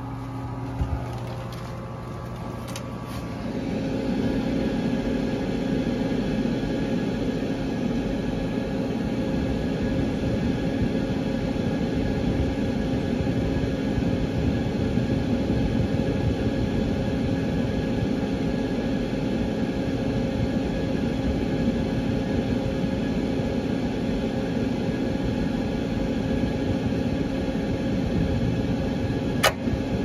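The draft inducer motor of an Intertherm mobile home furnace runs with a steady hum, growing louder about three and a half seconds in. This is the igniter warm-up stage of the start-up sequence, before the gas lights. A sharp click comes near the end.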